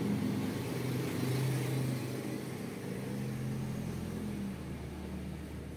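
An engine running in the background with a steady low hum, its pitch shifting up and down, fading toward the end.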